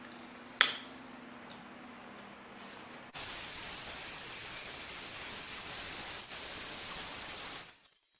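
A sharp click, then about three seconds in a loud, steady hiss starts suddenly and runs unbroken before cutting off near the end: a plasma cutter cutting sheet metal.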